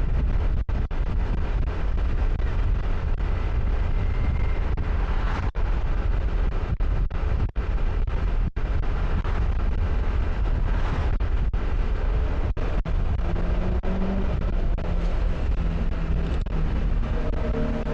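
Wind buffeting the microphone over a riding motorbike's engine, a steady low rumble that cuts out for an instant several times. Near the end a pitched engine note from a passing vehicle joins in.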